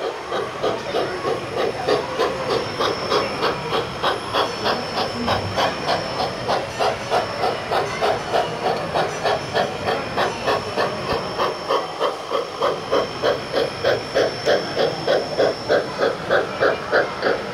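Sound-equipped O scale model steam locomotive giving a steady run of rhythmic steam chuffs, about three a second, as it hauls its train.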